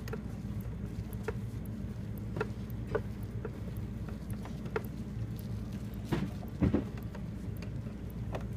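Light clicks and taps from handling a plastic toy machine, with a louder double knock about six and a half seconds in, over a steady low rumble of the microphone rubbing against clothing.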